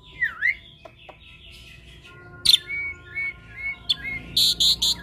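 Caged hybrid jalak, a Nias hill myna crossed with an Asian pied starling, singing a varied song: a swooping whistle at the start and a few clicks, then a run of short whistled notes about halfway through, and a burst of loud high notes near the end.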